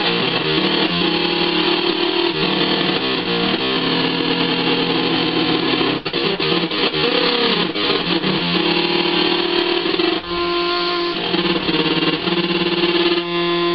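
Electric guitar played through a breadboarded Schumann Two Face PNP fuzz circuit, with its diode-and-capacitor switch in the N position: thick, buzzy distorted notes, some held and some picked. There is a choppy, stuttering stretch in the middle. The sound changes as the guitar's volume knob is worked.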